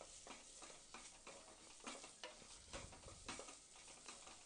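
Wooden spatula stirring onions and cumin seeds in a pressure cooker: faint, irregular scrapes and taps over a light sizzle of frying in ghee and oil.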